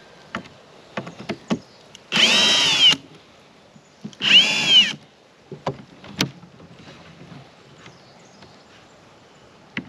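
Cordless drill-driver running in two short bursts about two seconds apart, each spinning up and winding down, as it backs the screws out of a wooden swarm trap's lid. A few light clicks and knocks come between the bursts.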